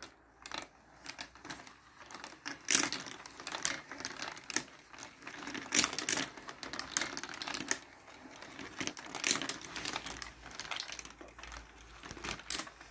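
Marbles rolling and clattering through a toy marble run: a continuous patter of irregular clicks and rattles, with a few louder clacks.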